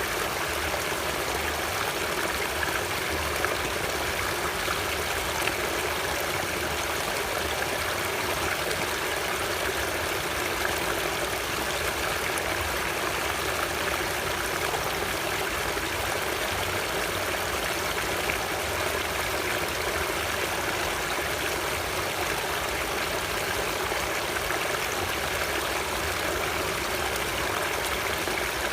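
Running water of a stream flowing steadily, an even rushing noise that does not change.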